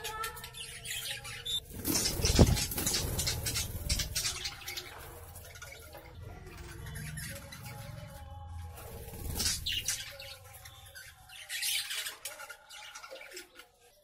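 Budgerigars squawking and chattering in a squabble, with a loud thump about two seconds in.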